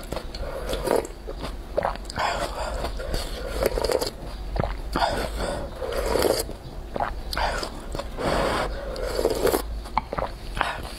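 Close-miked eating sounds: hot spicy broth slurped from a wooden spoon and rice noodles chewed, in a run of short wet swells with small clicks, about one every second or so.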